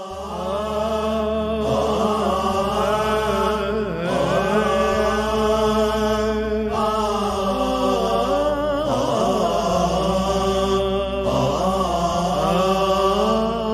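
A voice chanting long, wavering melodic phrases, each a few seconds long, over a low steady drone; it fades in over the first couple of seconds.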